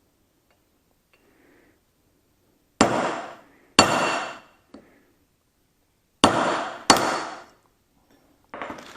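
Hammer striking a punch on steel: four sharp blows in two pairs, each ringing briefly, with a light tap between and a softer metal clatter near the end.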